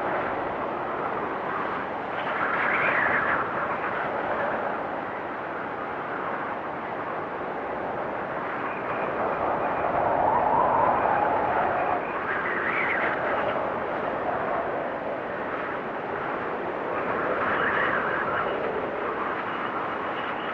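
Blizzard wind blowing steadily, rising in stronger gusts every few seconds, with a faint whistle in the higher gusts.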